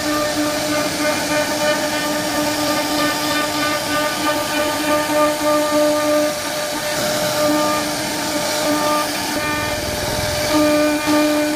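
CNC router spindle running with a steady high whine and cutting noise as it carves wood; the whine's lowest tone breaks off and returns in short stretches.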